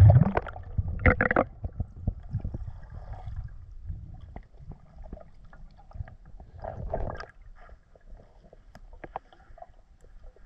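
Muffled underwater sound of a diver swimming: gurgling water in bursts at the start, about a second in, and again around seven seconds, with scattered small clicks between.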